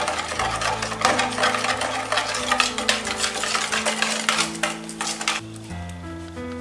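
Wire balloon whisk scraping and clicking rapidly against a plastic mixing bowl as flour is whisked into the liquid batter. It stops about five seconds in, leaving soft background music with sustained notes.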